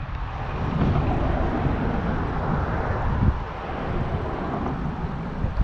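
Wind buffeting the microphone over a low rumble, with a broader rushing noise that swells through the first half and fades again.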